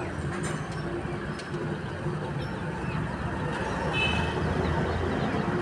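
Steady low background din of a busy market, with a few faint, short, high cheeps from baby chicks, clearest about four seconds in.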